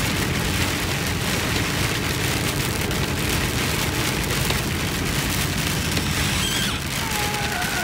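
Heavy rain pelting the roof and windshield of a moving vehicle, heard from inside the cab as a dense, steady patter of drops over low road and engine rumble.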